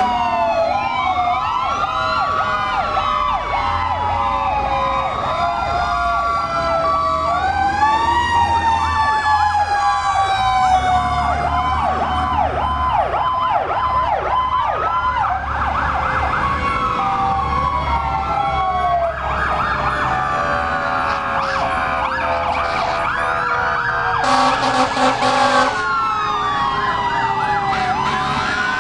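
Several fire-truck electronic sirens sounding at once as the trucks pass, overlapping slow wails and fast yelps, over the low rumble of their diesel engines. A brief loud horn blast comes near the end.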